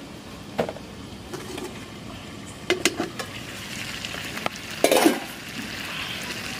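Chicken curry sizzling as it fries in a steel kadai, with a spatula knocking and scraping against the pan a few times; the hiss of the frying grows stronger in the second half, and the loudest knock comes about five seconds in.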